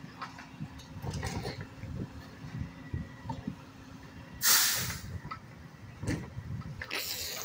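Mack LR garbage truck's diesel engine running low with light rattles, broken by two sharp bursts of air hiss: a loud one about four and a half seconds in and a shorter one near the end, the hiss of the truck's air brakes.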